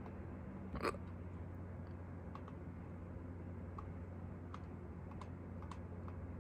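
A single short, sharp hiccup about a second in, over a steady low hum, followed by a few faint ticks.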